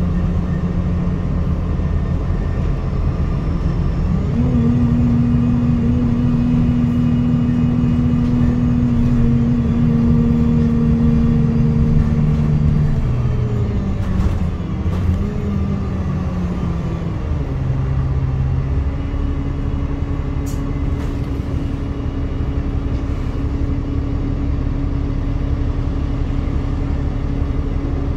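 Alexander Dennis Enviro200 MMC single-deck bus heard from inside the passenger saloon while under way: a steady engine and drivetrain drone with road noise. The drone drops in pitch about halfway through, then holds steady at a lower pitch, with a few light rattles.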